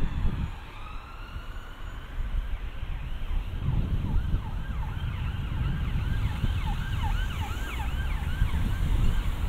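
Emergency vehicle siren sounding in the street. It starts with a slow rising and falling wail, then switches partway through to a fast yelp of about two sweeps a second.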